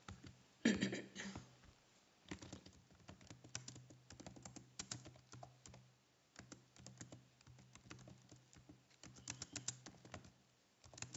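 Computer keyboard being typed on: light key clicks in quick runs with short pauses, starting about two seconds in, over a faint steady low hum. A brief louder noise comes about a second in.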